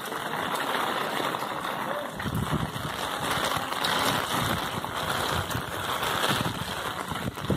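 Steady rain falling on a cobblestone street, with gusts of wind rumbling on the microphone from about two seconds in.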